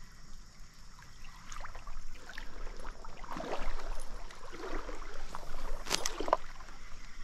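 Water sloshing and swishing as legs wade through a shallow trout stream's current, with a couple of sharp clicks about six seconds in.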